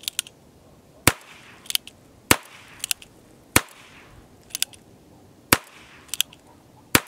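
Single-action Ruger Single Six .22 revolver being cocked and dry-fired five times: each cycle is a quick pair of light clicks as the hammer is thumbed back, then a sharp loud snap as the hammer falls on the trigger pull.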